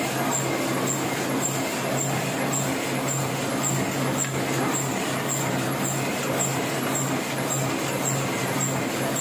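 Heidelberg offset printing press running steadily while it is inked up: a constant low hum and machine noise, with a faint high tick repeating about twice a second in time with the press cycle.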